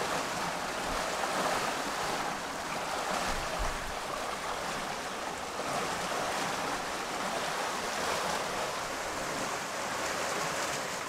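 Steady rush and wash of sea water churning past the hull and in the wake of a sailboat under way, an even hiss of moving water.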